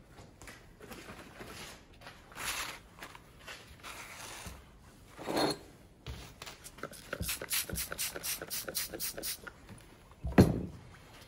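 A hand-pump trigger spray bottle of soapy water squirted in a quick run of pumps, about five a second, after a few rustles of shop paper; near the end a single loud knock.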